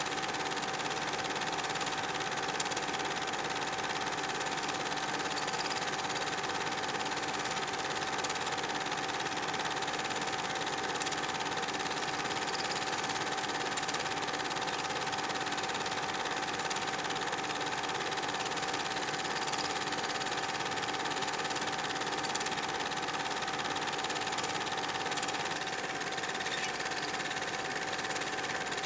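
Steady mechanical whirr with a constant high hum and no pauses, the running sound of a film projector playing back silent home-movie footage.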